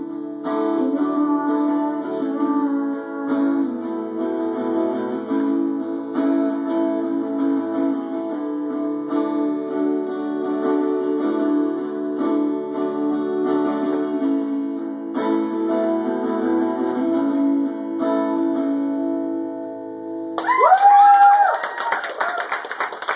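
Acoustic guitar played live, notes ringing out as the song closes. About 20 seconds in, the audience breaks into loud cheering and clapping, with whoops.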